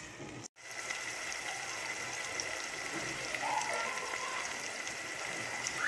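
Diced chicken frying in oil in a pan, sizzling and bubbling steadily with small scattered pops as its released juices cook off.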